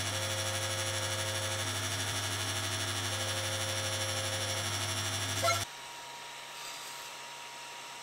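ACO-318 45 W aquarium air compressor running with a steady, loud mains-frequency hum while it supplies air assist to a laser cutting nozzle. It cuts off suddenly about five and a half seconds in, leaving a fainter steady hum.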